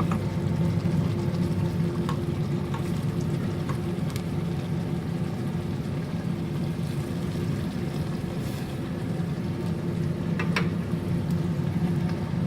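Chicken cooking in curry paste and coconut milk in a pan, bubbling over a steady low mechanical hum, with a few light clicks of a utensil against the pan.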